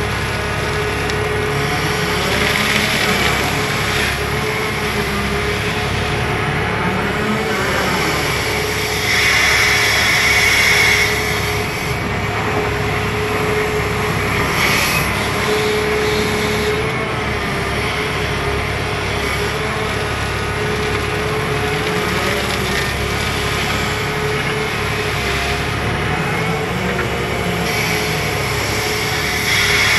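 Machinery running steadily: a constant hum with slow rises and falls in pitch, louder for a couple of seconds about a third of the way in.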